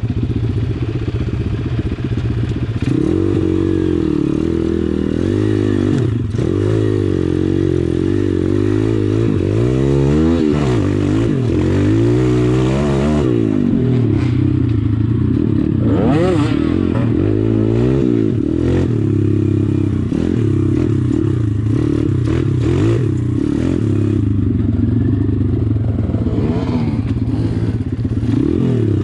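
Pit bike's YX 140 cc single-cylinder four-stroke engine revving up and falling back again and again while riding off-road, with short knocks and rattles from the bike.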